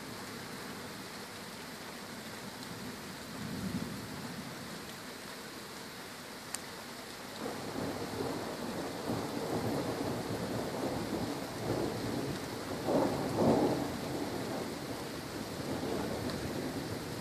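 Steady rain during a thunderstorm, with rolling thunder rumbling in from about halfway through and peaking about three-quarters of the way in. A single sharp click comes shortly before the thunder.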